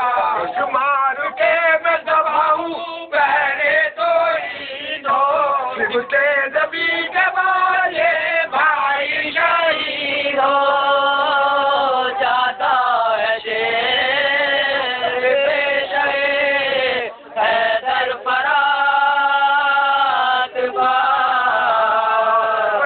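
Unaccompanied chanting of a marsiya, the Urdu elegy in Lucknowi style, sung in long drawn-out melodic phrases with held notes. There is a short breath-pause about three quarters of the way through.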